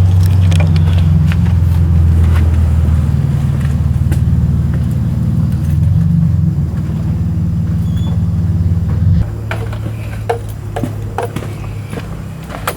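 A steady low hum from a running engine or motor, dropping suddenly to a quieter, lower hum about nine seconds in, with a few light clicks and knocks over it.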